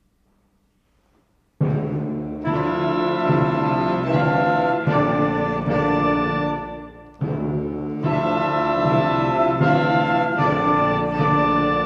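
Concert band coming in loud after a silence about one and a half seconds in: full, sustained chords of brass and woodwinds over timpani, in two long phrases with a short break between them about seven seconds in.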